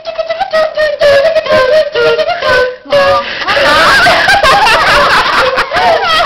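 Children making noises with their voices: one holds a wavering sung tone, broken by short gaps, for about three seconds. Then several voices warble together in high, sliding pitches.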